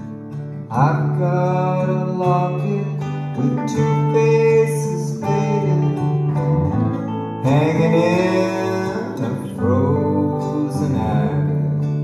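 A live folk-rock band plays together: acoustic guitar, electric guitar and bowed cello. Over steady low held notes, a melodic line rises and falls in several phrases.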